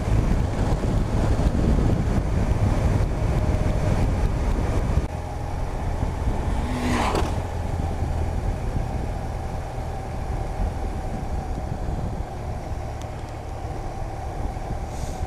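Touring motorcycle on the move: wind and engine noise, a steady rumble that drops in level about five seconds in as the bike slows.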